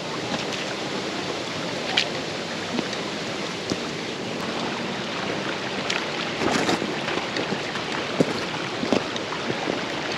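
Mountain stream rushing steadily over rocks, with a few sharp knocks of hiking boots stepping on the stones.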